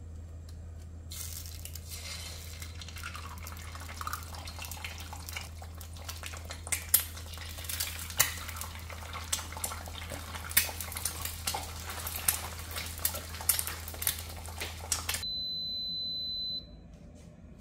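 Eggs frying in hot oil in a non-stick egg pan on a gas stove: a sizzle full of sharp spitting crackles starts about a second in, over a low steady hum. Near the end the sizzle stops abruptly and a waffle maker gives a long electronic beep, its signal that the waffle is done.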